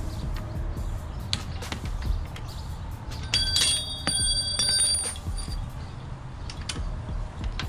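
Clicks and knocks of hand tools working on bicycle parts. Around the middle comes a bright metallic ring, struck several times over about a second and a half.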